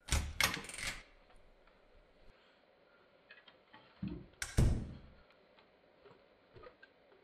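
Wooden interior door being handled: three quick sharp knocks at the start, then a thump and a louder bang about four and a half seconds in, with faint clicks between.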